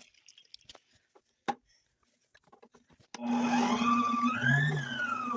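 A few light clicks, then about three seconds in an electric kitchen machine's motor switches on and runs with a steady hum and a higher whine that rises and then falls in pitch.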